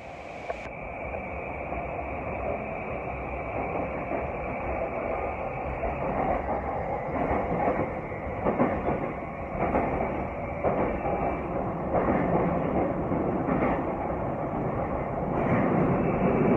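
Subway train running, heard from inside the car: a steady rumble and rattle that grows louder over the first two seconds, with a faint steady whine.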